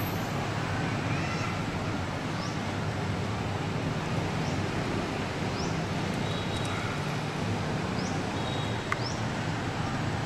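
Steady outdoor background noise with a low rumble, crossed by faint, short, high rising chirps every second or two.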